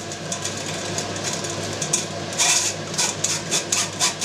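A spoon rubbing cooked blackcurrant pulp through a metal kitchen sieve: a run of wet, rasping scrapes, lighter at first, then louder at about three strokes a second from about halfway in.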